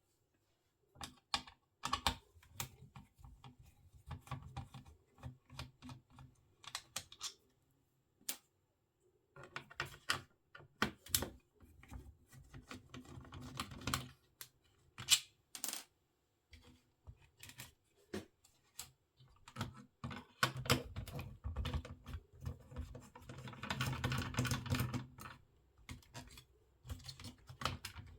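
Irregular light clicks and taps of small plastic parts and tools being handled while a cassette recorder is taken apart, turning into a denser clatter about twenty seconds in.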